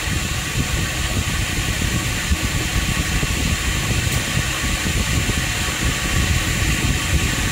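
Automatic gluing machine's conveyor-belt cleaning device running: a steady mechanical hum with a low rumble and an even airy hiss, with no change in speed.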